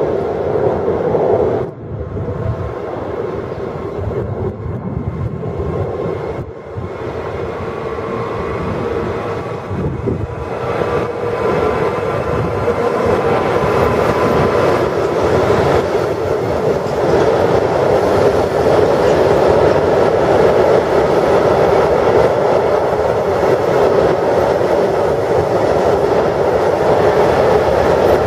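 Freight train of tank and hopper wagons passing close by, hauled by an electric locomotive: a steady rolling rumble and rattle of wheels on the rails that grows louder about a dozen seconds in as the wagons come alongside and then holds.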